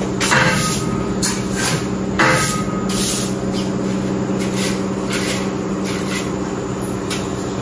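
Long-handled brush scraping in short strokes, about one to two a second, over a steady motor hum.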